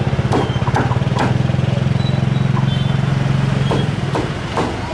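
Cleaver chopping roast duck on a wooden chopping block: a handful of sharp knocks, three in quick succession, then three more near the end. Under them an engine runs steadily with a fast low pulse, fading near the end.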